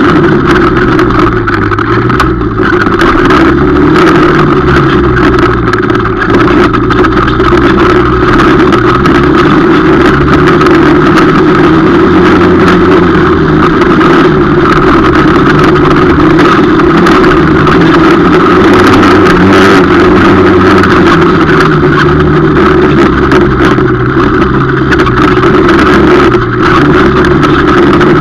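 250 cc quad ATV engine running hard, heard onboard, its pitch rising and falling every few seconds as the throttle is opened and eased.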